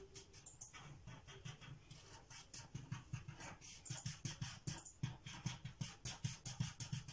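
Felt-tip marker scribbling on paper in quick back-and-forth strokes, several a second, as a window of the drawing is coloured in.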